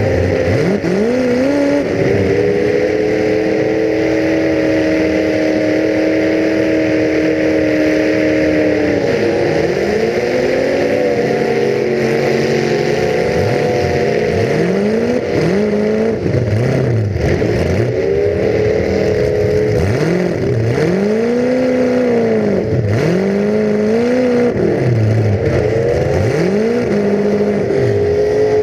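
Full-size demolition derby car's engine heard from onboard. It holds steady high revs for several seconds early on, then revs up and drops back again and again in quick surges.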